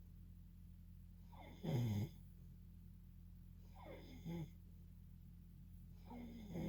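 Snoring: three snores at the pace of slow sleep breathing, about two seconds apart, the first one, a bit over a second in, the loudest.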